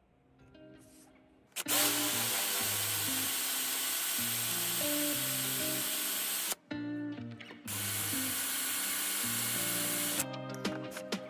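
Handheld power drill boring through a threaded metal eyebolt clamped in a vise, starting about a second and a half in, stopping for about a second just past the middle, then running again and ending in a few short bursts. Background music with changing notes plays underneath.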